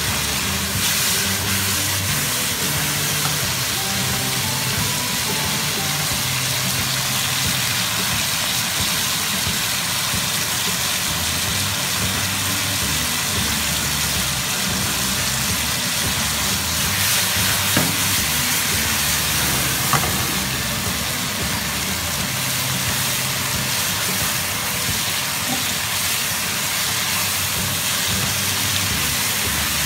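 Chicken and shiitake mushrooms sizzling steadily as they are stir-fried in a wok with a spatula, with a couple of sharp knocks about two-thirds of the way through. Low background music plays underneath.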